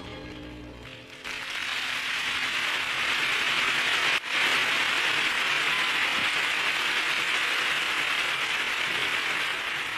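The band's last note dies away, then audience applause breaks out about a second in and carries on steadily, with a brief drop a little after four seconds.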